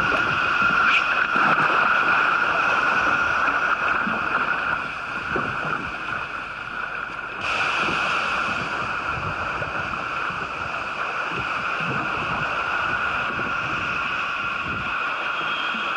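Choppy sea water sloshing and splashing, with wind buffeting the microphone, over a steady high-pitched hum. The sound changes abruptly about seven and a half seconds in.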